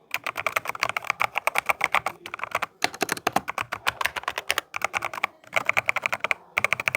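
Typing on an Epomaker TH80 Pro mechanical keyboard fitted with Akko Rosewood switches: rapid key clicks in bursts, with several short pauses.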